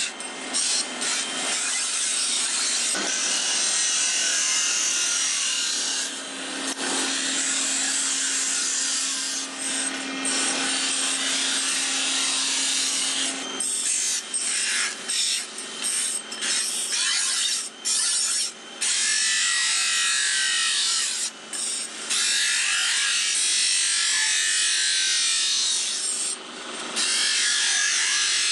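Steel knife blades being ground on a bench grinder's abrasive wheel: a steady, harsh hiss of metal against the spinning wheel, broken by short gaps as the blade is lifted off and pressed back on. A low hum runs under it through the first half.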